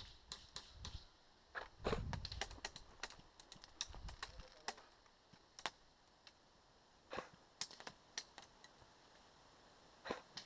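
A series of short, sharp clicks and snaps at an uneven pace, with a couple of low rumbles of handling noise about two and four seconds in.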